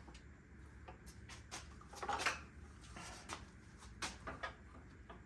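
Scattered light clicks and knocks of parts being handled and fitted against a miter saw's guard and housing, with the loudest knock about two seconds in.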